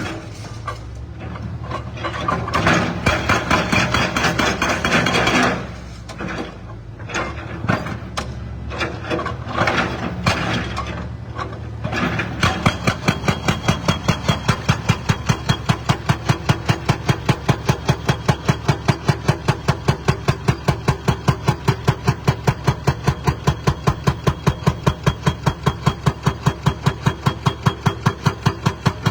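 Diesel engine of heavy demolition machinery running, with irregular crunching and breaking of concrete and debris. About twelve seconds in a hydraulic breaker starts hammering steadily at about four blows a second as it breaks up a concrete floor.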